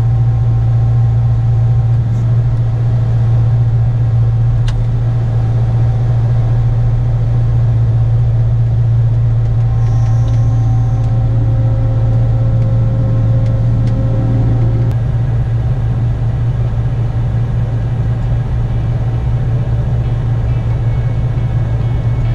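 Combine harvester's engine running with a steady, loud low drone as the machine drives off on the road.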